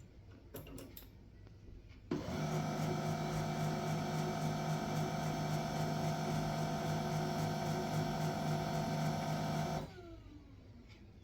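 HP LaserJet M1136 MFP printer-scanner: a few light clicks, then an internal motor starts abruptly with a steady mechanical hum, runs for about eight seconds and cuts off, its pitch falling briefly as it winds down.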